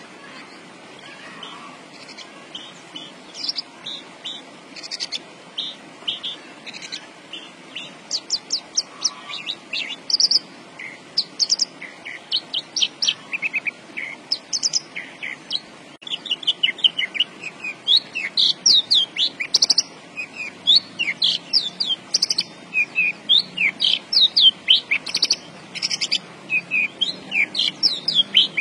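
Branjangan (Horsfield's bush lark) singing a fast, continuous run of short high chirps and quick sweeping notes. The song grows denser and louder from about halfway through.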